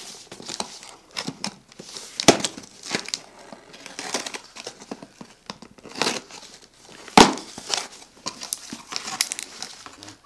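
Scissors cutting through packing tape on a cardboard shipping box, with irregular rustling, scraping and clicking of the cardboard. There are two louder knocks, about two seconds in and again about seven seconds in, as the box is handled.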